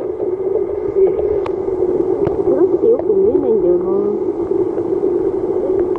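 Steady, muffled underwater water noise picked up by a camera submerged in a fish holding tank, with a brief wavering tone about three seconds in.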